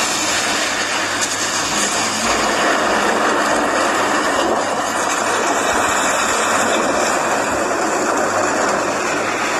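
Steady rushing noise of a storm-like nature scene in a Dolby Atmos demo trailer, played through the Razer Phone 2's speakers.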